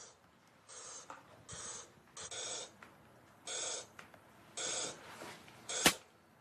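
Laptop game sound effects of a digital balloon being pumped up: five short air-pump hisses, then a sharp pop near the end as the balloon bursts.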